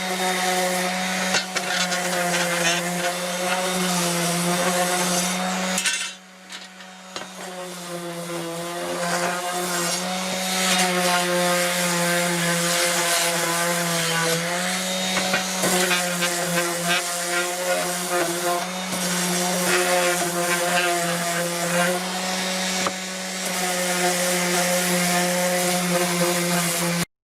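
DeWalt 20V cordless random orbital sander running and sanding, with a steady motor hum and a rough abrasive rasp. The sound drops away about six seconds in, builds back up over the next few seconds, and stops abruptly near the end.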